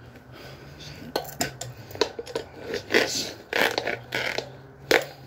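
Bicycle tyre being forced onto its rim by hand, heard as irregular rubbing, scraping and sharp clicks of rubber and metal as the bead is worked over the rim edge.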